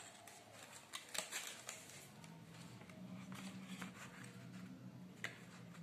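Paper and card rustling and clicking as hands lift and fold the layered paper heart flaps of a handmade explosion gift box, with a few sharper taps about a second in and near the end. A faint low steady hum comes in about two seconds in.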